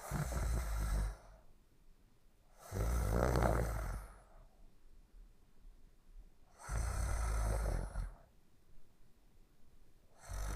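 Snoring in sleep: three snores, each about a second or so long and spaced roughly three to four seconds apart, with a fourth beginning at the very end.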